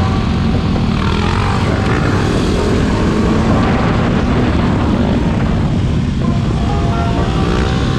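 Yamaha WR250X supermoto's single-cylinder four-stroke engine running steadily under way.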